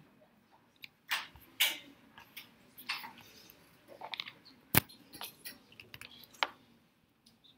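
Handling noise: scattered clicks, taps and light knocks of equipment being fiddled with, with one sharp knock about five seconds in.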